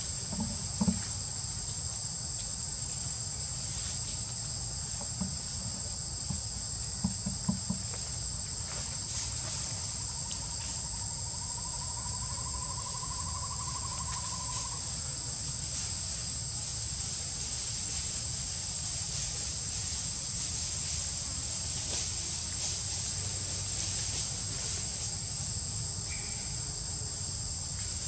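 Steady, high-pitched insect chorus, with a few brief knocks about a second in and again around seven seconds in.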